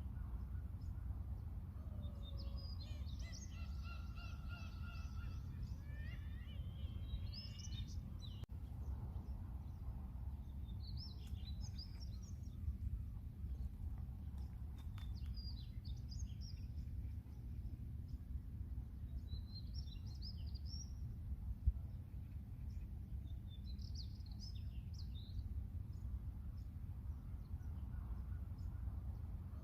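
Seagulls calling in short bursts every few seconds over a steady low rumble.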